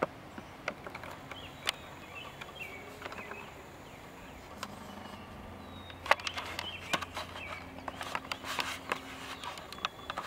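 Outdoor ambience in a suburban yard: small birds chirping faintly and a low steady hum, with scattered sharp clicks and knocks that come thicker in the second half.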